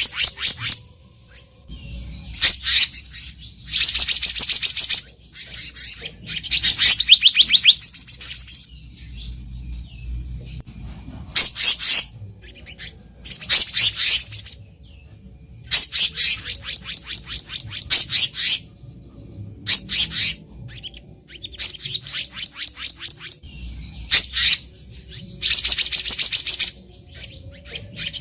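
Black-naped monarch (kehicap ranting) calling: bursts of rapid, high-pitched chattering notes, each about a second long, repeated every couple of seconds with short pauses between.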